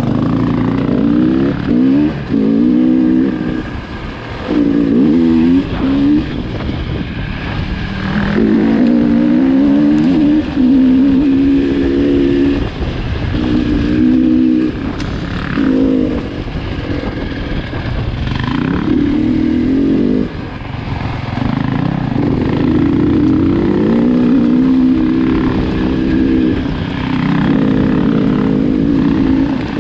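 Enduro motorcycle engine repeatedly revving up and dropping back as the throttle is opened and closed, the pitch climbing and cutting off every one to three seconds.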